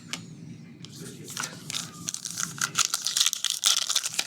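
Trading-card pack wrapper being torn open and crinkled by hand: a sharp click at the start, then dense crackling and tearing from about a second in, loudest near the end.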